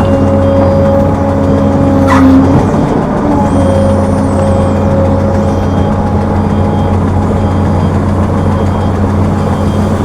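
Heavy diesel machinery engine running steadily, with a brief sharp clank about two seconds in.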